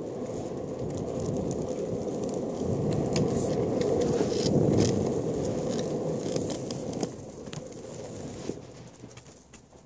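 Longboard wheels rolling on smooth asphalt: a steady low rolling rumble with scattered light clicks, building to its loudest about halfway, then dropping away after about seven seconds as the board slows.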